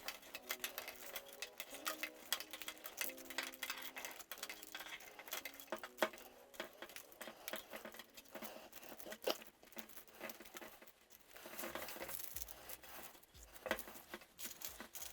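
Plastic spiral coil wrap being wound by hand around a sleeved PSU cable: many quick light clicks and crinkles, with a denser rustle near the end.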